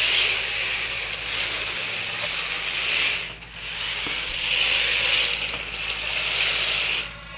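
Laser Battle Hunters toy RC car's small electric motors and plastic gears whirring as it drives. The whir stops briefly about three and a half seconds in and again near the end.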